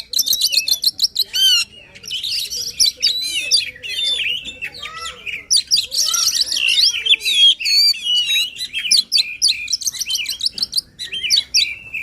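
Oriental magpie-robin (kacer) singing an excited, non-stop song of fast whistles, trills and rapid chattering notes, with only short breaks.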